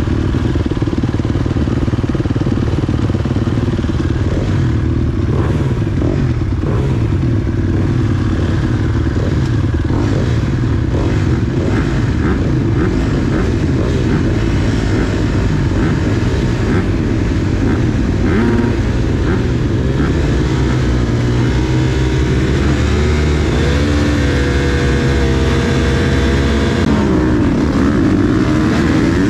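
Motocross motorcycle engines running and revving, the pitch rising and falling several times near the end.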